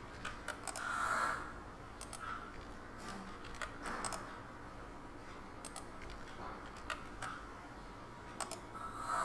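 Faint, scattered computer mouse clicks and keyboard presses over low room noise, as the Ctrl+A Apply menu is worked by hand.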